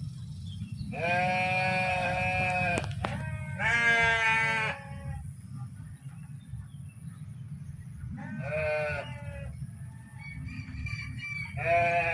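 Bleating livestock (sheep or goat type) calling four times: two long bleats of one to two seconds each, then two shorter ones. A steady low rumble runs underneath.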